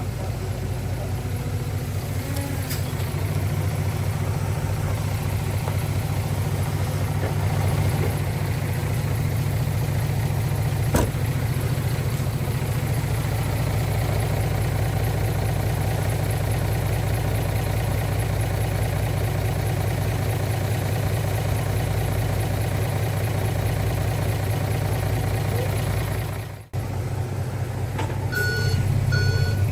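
Heavy diesel earthmoving machinery running steadily with a low, even engine drone. After a brief break near the end, a reversing alarm beeps a few times.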